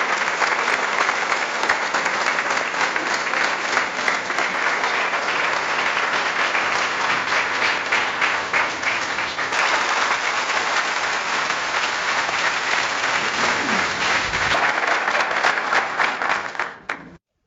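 A large audience applauding: dense, steady clapping from many hands that fades out near the end.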